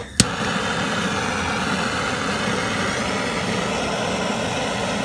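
BernzOMatic trigger-start propane torch: a sharp igniter click just after the start, then the flame burning with a steady, even hiss.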